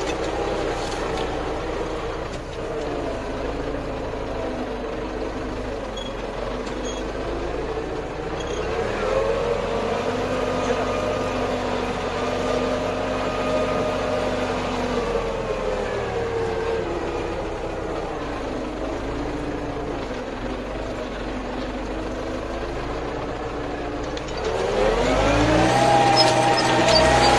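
MTZ 820.2 tractor's four-cylinder diesel engine running under load while pulling a plough, heard from the cab. Its pitch climbs about nine seconds in, sinks back a few seconds later, then rises steeply and louder near the end.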